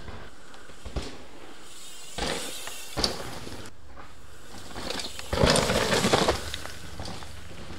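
Mountain bike riding over a dirt and rock trail: tyres rolling and scuffing, with a few sharp knocks and a louder rough rush of tyre noise lasting about a second roughly two-thirds of the way through.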